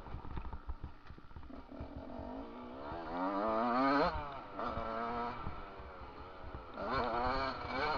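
Yamaha YZ125 single-cylinder two-stroke motocross engine revving through the gears while riding: the pitch climbs steeply about three seconds in, drops off sharply at about four seconds, picks up again, then climbs once more near the end. Low thumping runs underneath throughout.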